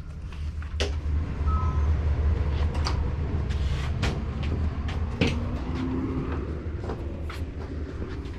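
Low rumble, like a passing heavy vehicle such as a bus, louder in the first few seconds and then easing, with scattered clicks and knocks.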